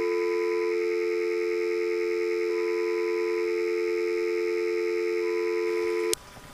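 Test-pattern tone over colour bars: a steady two-note hum like a telephone dial tone, with a higher beep of about a second sounding three times, evenly spaced. It cuts off suddenly near the end.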